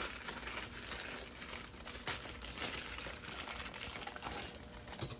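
Thin plastic bag crinkling and crackling as hands twist and pull at it to get it open.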